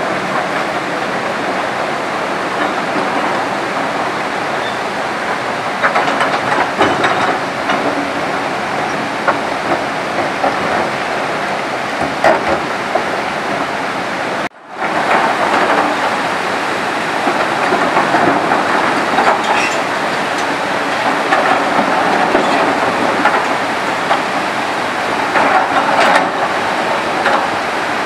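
Flood-swollen river rushing over boulders, a loud steady noise, mixed with the running of Kobelco hydraulic excavators working in the stream and scattered knocks. The sound drops out for a moment about halfway through.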